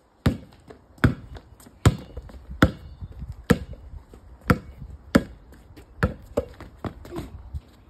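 Basketball being dribbled on brick paving: about a dozen sharp bounces, each with a short hollow ring, a little more than one a second and quicker near the end.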